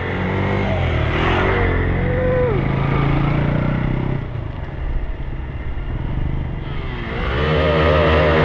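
Motorcycle engine running under way, its pitch dipping and then rising again about seven seconds in.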